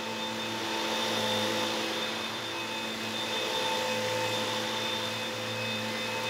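Eureka Rapid Clean Pro cordless stick vacuum running steadily, a motor hum with a high whine, as its floor head is pushed back and forth over a fabric upholstered ottoman.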